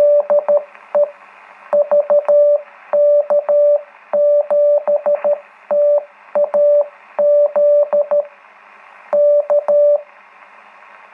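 Morse code (CW) heard through a ham radio receiver on the 80 m band: a single steady tone keyed in groups of dots and dashes over constant band hiss. It is the operator's sending, which includes "DE VK7TAZ".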